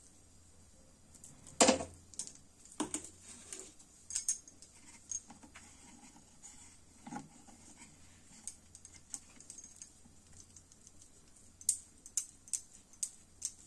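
Scattered light clicks and clinks of a steel spoon against dough and a wooden rolling board, with bangles jingling on the working wrist, as paratha stuffing is spread out; the loudest click comes about two seconds in, and a quick run of clinks comes near the end.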